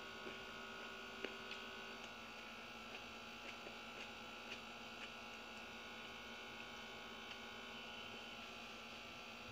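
Steady electrical hum, with faint scattered clicks and soft eating sounds as rice is picked up by hand and chewed.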